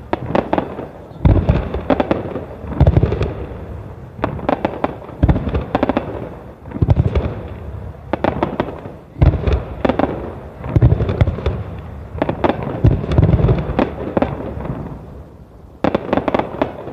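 Starmine fireworks barrage: aerial shells bursting in quick succession, a deep boom about every second, each followed by crackling.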